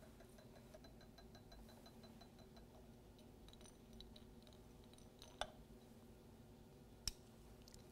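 Near silence: faint room hum, broken by two short, faint clicks of glassware, one about five seconds in and one about seven, as the Erlenmeyer flask is handled under the burette tip.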